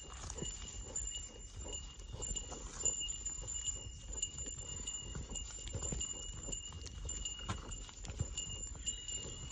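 Footsteps on a mountain trail, knocking unevenly, with a small bell ringing steadily and brightening now and then.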